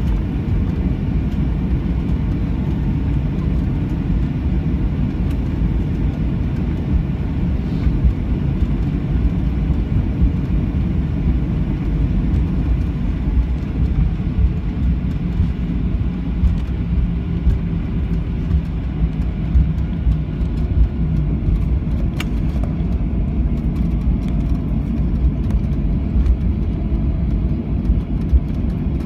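Cabin noise of a Boeing 737-800 taxiing: a steady low rumble from its CFM56-7B engines at taxi power and the gear rolling along the taxiway.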